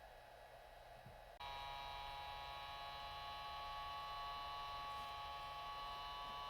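Small cooling fan of a Traxxas EZ Peak charger switching on about a second and a half in, then running steadily with a faint whine of several high tones over a low hum.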